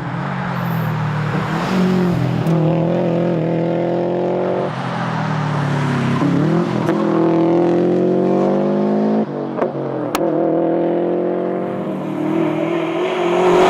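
Subaru WRX STI's turbocharged flat-four engine accelerating hard under rally racing, its pitch climbing and then dropping back at each upshift, three times through the gears. A sharp click about ten seconds in.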